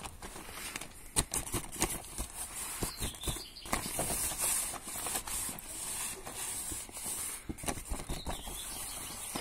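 Grid-reinforced plastic sheeting crinkling and rustling in irregular crackles as a cat climbs over and burrows under it.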